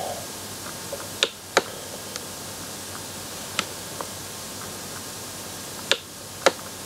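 Stylus clicking and tapping on a writing tablet, about six short sharp clicks spread irregularly over a steady faint hiss.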